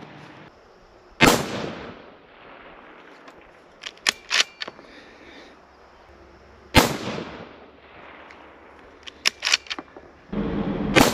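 Three unsuppressed rifle shots from a .17 Hornet, each a sharp crack with a short ring-out, about five seconds apart, the last right at the end. Between the shots come short runs of quick metallic clicks as the bolt is worked to chamber the next round.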